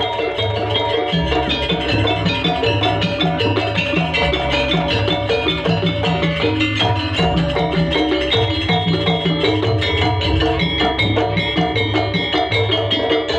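Javanese jaranan ensemble music playing live: drums beat a steady repeating pattern under interlocking tuned metal percussion.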